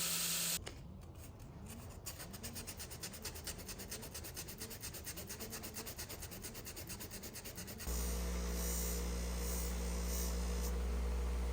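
Quick, even rubbing strokes of an abrasive, several a second. About eight seconds in, a steady low hum takes over.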